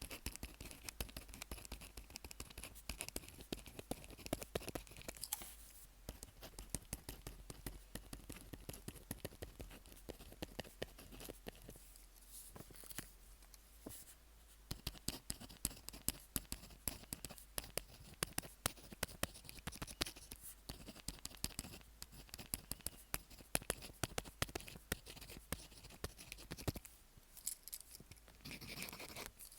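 A pen writing on paper that has the microphone fixed to it: a dense run of short strokes and ticks, broken by a few brief pauses.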